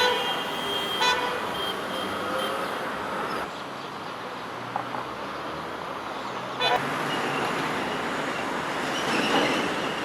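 City road traffic rumbling steadily, with car horns honking now and then, once right at the start and again near the end.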